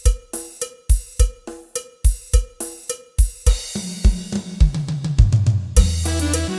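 Karaoke backing track played over a party sound system under test: a drum-kit intro of kick, snare and hi-hats, then a bass run about three and a half seconds in that leads into the full band with keyboards near the end.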